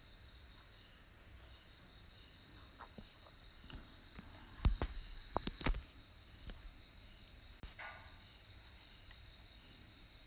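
Steady high-pitched hiss of background recording noise, with a short cluster of sharp clicks and knocks about halfway through.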